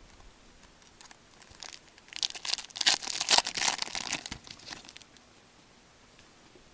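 A foil trading-card pack being torn open, its wrapper crinkling in a quick run of crackles lasting about three seconds.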